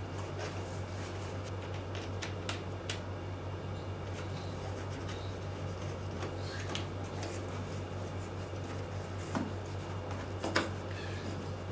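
Arm pieces and bolts being handled and fitted together: scattered light clicks and rubbing, the sharpest click about ten and a half seconds in, over a steady low electrical hum.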